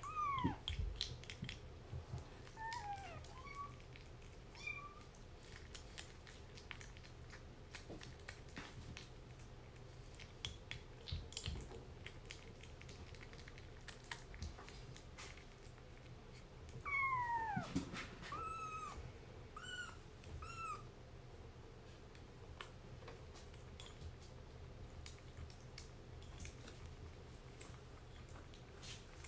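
Kitten meowing: a falling meow at the start, then a louder, longer falling meow a little past the middle, followed by three short calls. Small clicks from feeding at a ceramic bowl run between the calls.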